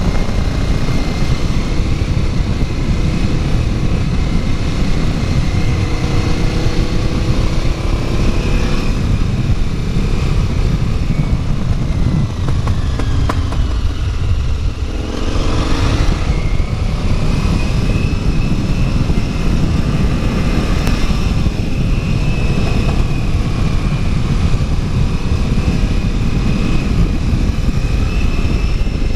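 KTM 950 Adventure's V-twin engine running as the bike rolls at low speed, revs rising and falling with the throttle, with one sharper rise in revs about halfway through.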